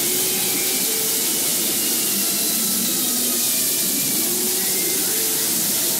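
Loud, steady static-like hiss, with faint wavering tones underneath it.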